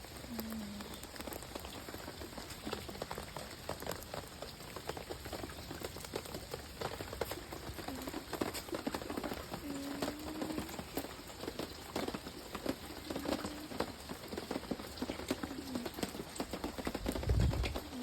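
Steady rain pattering, a dense, irregular crackle of drops. A few short low hums sound here and there, and a low thud comes near the end.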